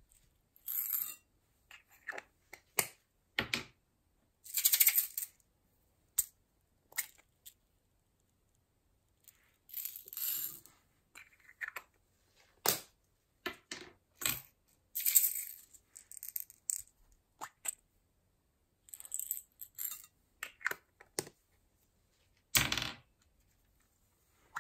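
Small plastic beads shaken and poured from little plastic cups, clattering into a glass dish of glitter in short, irregular rattling bursts, with sharp single clicks in between.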